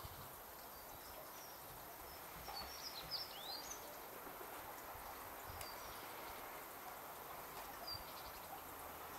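Faint outdoor background hiss with scattered short bird chirps, including a quick run of falling calls about three seconds in.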